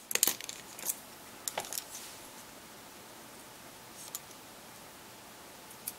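Light, sharp clicks and taps of a smartphone's small internal parts and a prying tool being handled while it is taken apart: a quick cluster in the first two seconds, then single clicks about four seconds in and near the end.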